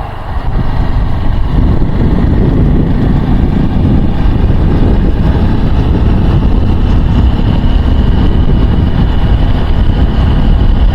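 Wind buffeting a helmet-mounted microphone on a moving Honda XR150L motorcycle, with the bike's small single-cylinder engine running underneath. The rush swells about half a second in and then holds steady at riding speed.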